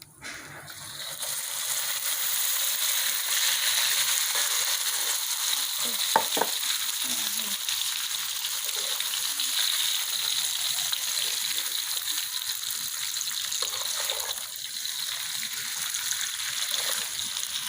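Catfish pieces added to hot chilli sambal in a pan, sizzling. The sizzle swells up over the first second or two and then holds steady, with a short clack of a utensil about six seconds in.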